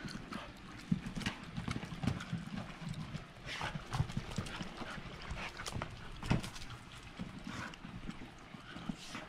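A dog mouthing and batting a deflated, water-filled basketball around on brick pavers. It makes irregular knocks, slaps and thuds, a few of them sharper, about a second, four seconds and six seconds in.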